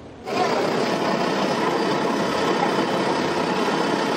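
A steady engine-like running noise that comes in suddenly about a quarter second in and holds at an even level.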